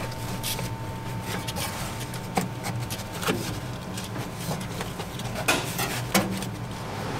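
Heavy paper template board rustling and scraping as it is handled and pressed into place, with irregular crackles and a few louder crinkles about two and a half, five and a half and six seconds in.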